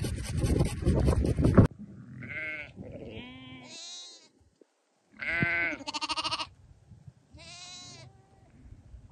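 A loud rush of wind noise on the microphone cuts off abruptly at the start. Then small livestock bleat: about six wavering calls at different pitches, high and low, spread over several seconds.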